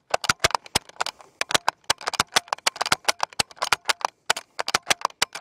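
Bolt of a No. 1 Mark III short magazine Lee-Enfield rifle worked rapidly, as in the Mad Minute rapid-fire drill, with no shots fired: a fast run of sharp metallic clicks and clacks as the bolt is cycled over and over.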